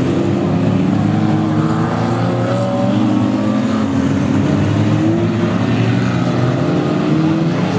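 Several Lightning Rods saloon race cars' engines revving hard on a short oval, their pitches overlapping and rising and falling as the cars pass.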